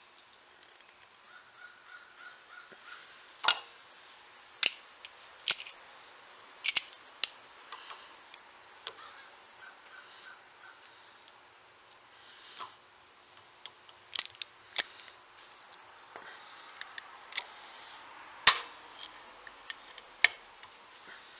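About a dozen sharp, irregular metal clicks and snaps as steel locking pliers grip, twist and slip on a broken T-nut held in a second pair of locking pliers in a bench vise, working to peel it off the bolt. The loudest snap comes near the end.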